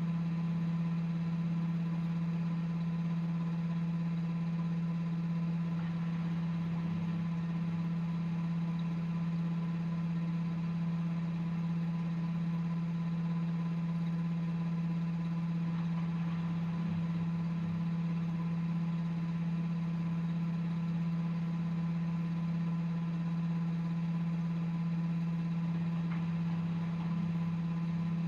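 Front-loading washing machine running with a steady low hum and a faint higher whine, unchanging throughout.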